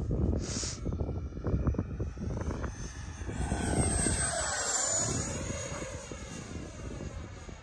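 80 mm electric ducted fan of an FMS Futura RC jet whining as it flies past. It grows loudest about four seconds in, and the whine falls in pitch as it passes. Wind rumbles on the microphone throughout.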